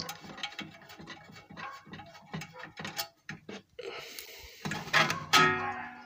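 Handling noise around a vintage valve TV's metal chassis: a run of light clicks and knocks, then a short hiss and a brief pitched sound near the end.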